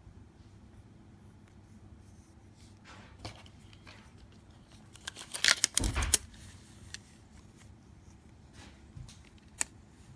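Handling noise: a short run of clicks and rattles from small hard objects about five to six seconds in, and a single sharp click near the end.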